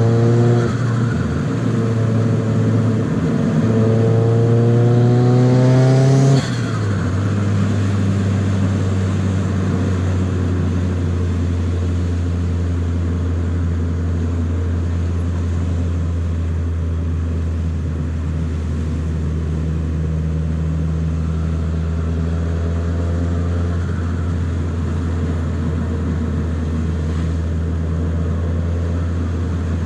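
Nissan 200SX S14a's turbocharged SR20DET four-cylinder pulling hard, its pitch rising for about six seconds. The throttle then closes suddenly with a short rushing burst of turbo flutter, and the engine settles into a steady lower drone while cruising.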